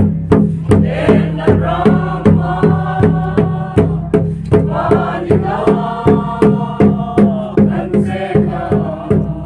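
A group of people singing together, accompanied by a large Mizo khuang drum beaten in a steady rhythm of about two and a half beats a second.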